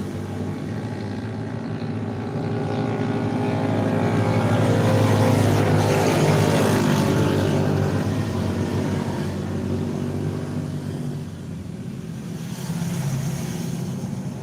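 A bus engine running as the bus passes close by. The engine grows louder to a peak about halfway through, then fades away.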